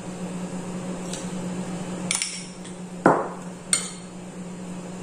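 A metal spoon stirring dry flour, sugar and spices in a glass plate, scraping and clinking against the glass with a handful of sharp clinks, the loudest about three seconds in. A steady low hum runs underneath.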